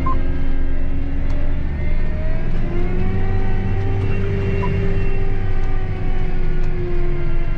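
Heavy farm machinery running steadily under load: a deep diesel rumble with several whining tones that slowly drift up and down in pitch.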